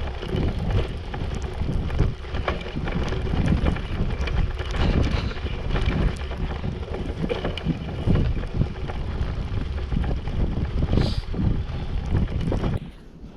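Wind buffeting the microphone during a bicycle ride on a snowy track, with rumble and knocks running through it. The noise drops away abruptly near the end.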